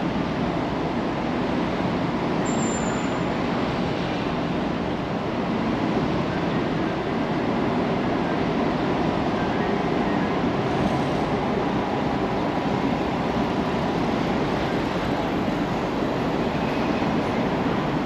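Steady city street noise: a continuous rumble of traffic.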